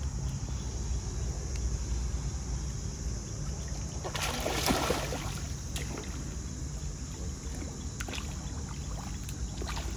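Hooked fish thrashing at the water's surface while being played on a float line: a burst of loud splashing about four seconds in, then a few smaller splashes, over a steady low rumble.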